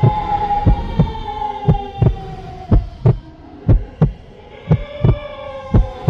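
Heartbeat sound effect: a double thump (lub-dub) about once a second, over a sustained eerie drone that slowly falls in pitch.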